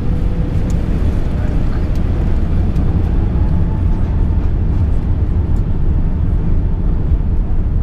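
Airbus A380 cabin noise beside the wing while taxiing: a steady low rumble from the engines and rolling gear, with a faint whine that rises slightly in pitch about two seconds in and then holds.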